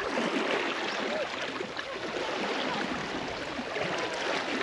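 Water sloshing and churning around Asian elephants wading through deep water, a steady irregular splashing.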